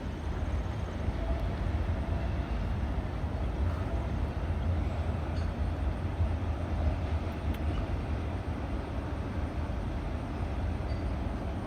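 Freight train of autorack cars rolling past: a steady, even rumble of wheels on rail.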